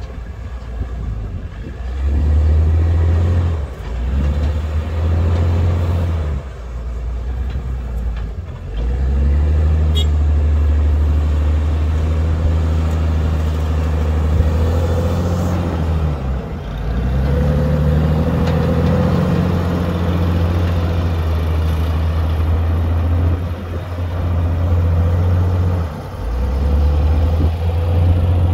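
Wheel loader's diesel engine working under load, revving up and easing off again and again, with several seconds of hard running between short drops.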